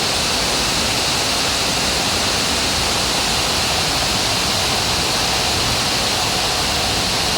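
Heavy rain pouring steadily in a windstorm, an even, unbroken rushing noise.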